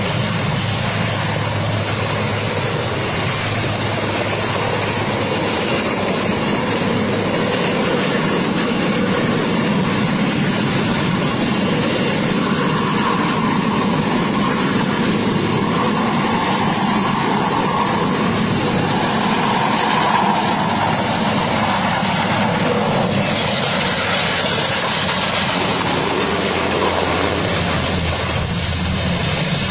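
Twin-turbine Airbus Helicopters SA330 Puma flying low, its engines and rotor running with a steady, loud noise. The sound grows brighter about two-thirds of the way through.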